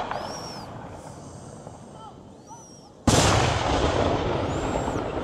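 End of a fireworks display: the echo of the last shells dies away under short whistles from the spectators. About three seconds in, a sudden loud bang breaks in and carries on as a long rumbling noise with more whistling over it.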